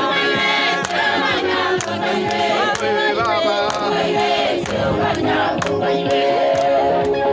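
A crowd singing together, unaccompanied, with hand clapping throughout.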